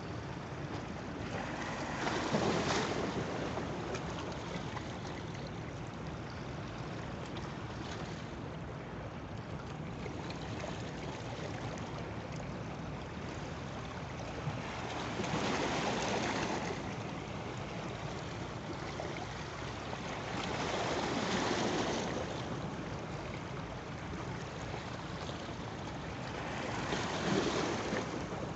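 Sea waves washing against a boat, with wind on the microphone and a steady low rumble beneath. The wash swells up four times, for a second or two each.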